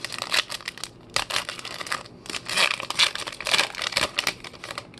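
Foil wrapper of a Panini Select football card pack crinkling and tearing as it is pulled open by hand: a dense run of crackles with a short lull about two seconds in.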